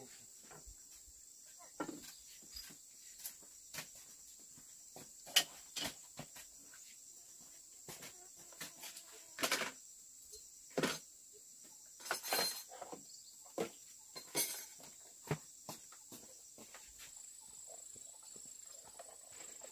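Scattered clicks, taps and light knocks of chopsticks and spoons against bowls during a meal, irregular and uneven in loudness, over a steady high-pitched drone of insects.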